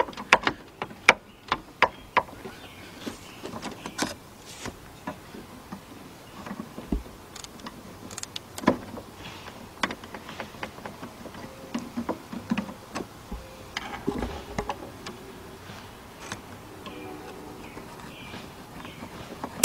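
Irregular light clicks, taps and knocks of hands handling and fitting parts, with a few sharper knocks.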